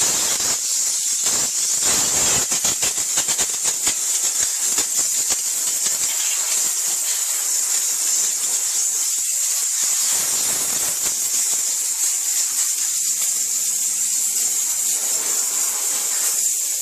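Steam cleaner jetting a continuous high hiss of steam into a car's door jamb to blow out dirt, with uneven rushes and spluttering in the first few seconds as the jet hits the surfaces.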